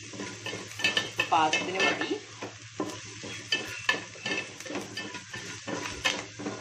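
Chopped onions sizzling in oil in a metal pot while a metal ladle stirs them, scraping and clinking irregularly against the pot. The onions are being sautéed toward a semi-brown colour.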